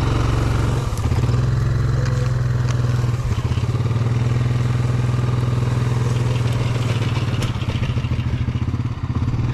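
Yamaha ATV engine running at a low, steady speed as it tows a go-kart out of tall grass on a rope.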